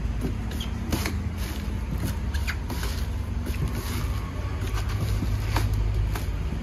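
Coconut being husked by hand on a fixed metal husking spike: a few sharp cracks as the nut is driven onto the spike and the fibrous husk is split and pried off. A steady low rumble runs underneath.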